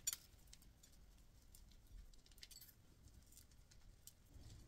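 Faint, scattered light ticks of sugar sprinkles dropped in pinches onto honey-coated struffoli on a glass serving plate.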